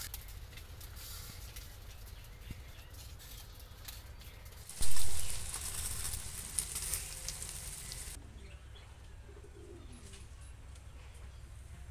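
A loud, sudden hissing rush of noise about five seconds in, fading and then cutting off abruptly; after it, a dove cooing faintly a few times.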